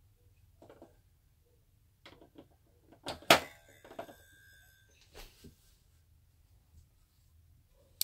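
Light clicks and knocks of small plastic dolls and furniture being set into a plastic Fisher-Price dollhouse. A louder clack comes about three seconds in and rings on briefly, with a few softer taps after it.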